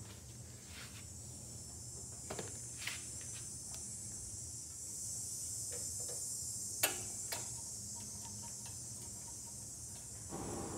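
Scattered light clicks and taps of small metal parts as the carburetor's governor rod and spring linkage are worked by hand, the sharpest click about seven seconds in, over a steady faint hiss.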